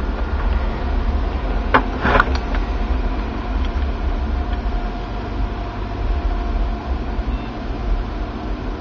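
Desktop computer's cooling fans running with a steady drone and low rumble as the overclocked PC restarts after a blue-screen crash. Two sharp clicks come about two seconds in.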